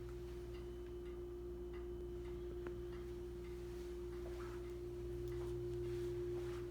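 A steady hum holding one even tone, with faint scattered ticks over it.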